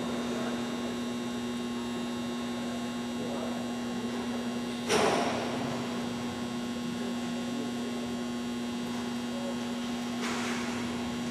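Steady electrical mains hum, with one sharp knock about five seconds in.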